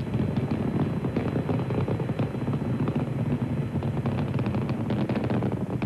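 Saturn V rocket's first-stage engines firing in flight: a steady low rumble thick with rapid crackle.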